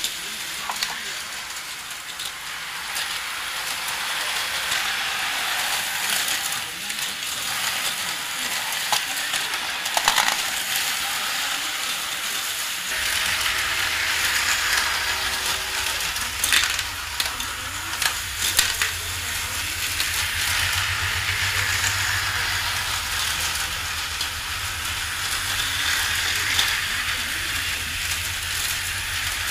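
Tyco US-1 electric slot truck running on its plastic track: a steady hissing whir from the small motor and pickup, broken by sharp clicks and clatter as loads drop and the truck works the action stations. A low hum comes in about halfway through.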